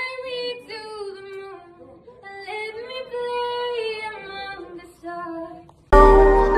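A girl's voice singing a tune unaccompanied, in a few phrases with held notes and short breaks. Near the end, loud music with a heavy beat cuts in abruptly.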